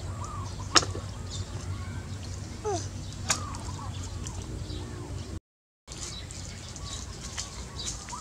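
Sharp knocks of a plastic water bottle against a concrete planter rim, twice, with short chirping bird calls in between. The sound drops out for half a second about five seconds in.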